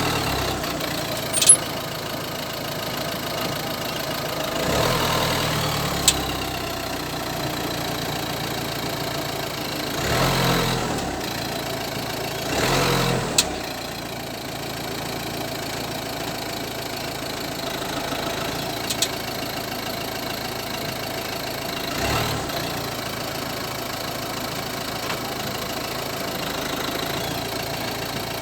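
Citroen C5 with its engine running steadily, with a few sharp isolated cracks and several short swells of low rumble: the strange crackling that the owner suspects comes from the suspension.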